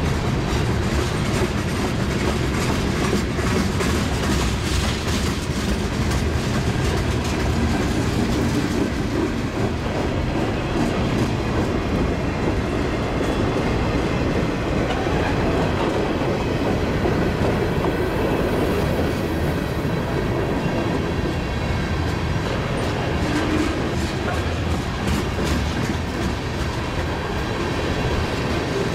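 CN freight train of covered hoppers and tank cars rolling steadily past, with its wheels clacking on the rails.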